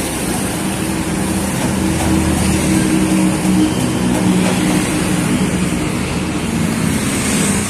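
Road traffic passing on a busy city street, with a vehicle engine humming close by, loudest around the middle.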